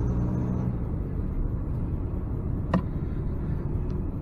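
Steady low road and engine rumble heard inside a moving car's cabin, with a single sharp click about two-thirds of the way through.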